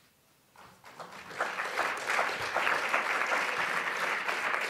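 Audience applauding: the clapping starts about half a second in, swells over the next second and then holds steady.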